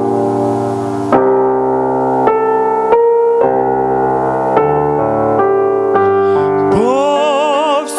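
Keyboard playing the introduction to a hymn in slow, held chords that change about once a second. Near the end a singer with a wide vibrato comes in.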